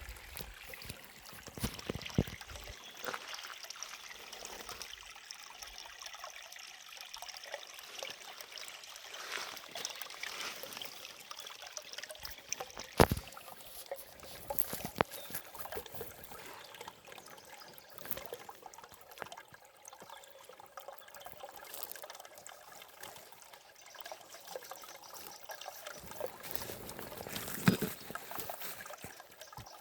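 Forest river water trickling and splashing, a steady rush broken by irregular sharp drips and splashes, the loudest about thirteen seconds in and again near the end.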